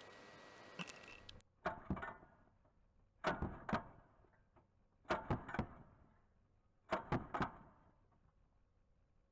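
Four sets of two or three sharp knocks, one set about every two seconds, each knock with a short ringing tail.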